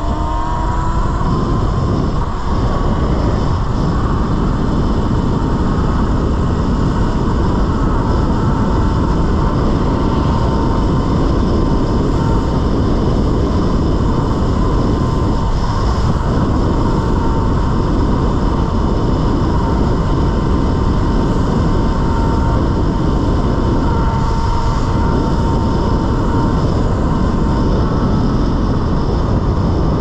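Talaria Sting electric dirt bike being ridden: the electric motor's whine rises in pitch in the first second or two, then holds steady under a loud, constant rushing noise.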